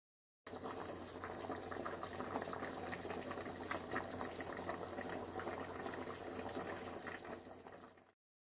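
Pot of dinuguan (pork blood stew) simmering, its thick sauce bubbling with many quick, irregular pops. It starts suddenly about half a second in and fades out just before the end.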